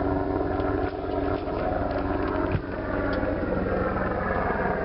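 A sailboat's inboard engine running steadily with a fast low throb. There is one brief thump a little past halfway.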